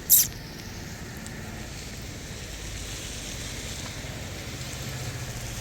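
One short, sharp hiss right at the start, then a steady, even rush of outdoor background noise like wind on the microphone, with a faint low hum.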